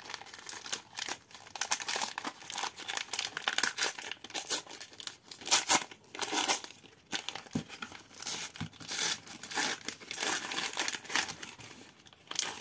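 Wrapper of an F1 Turbo Attax trading-card jumbo pack being torn open and crinkled by hand, in irregular rustles.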